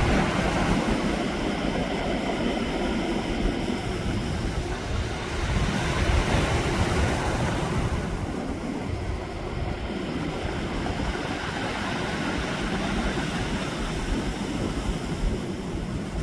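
Sea surf washing onto the shore, the hiss of the breaking waves swelling twice, with wind rumbling on the microphone.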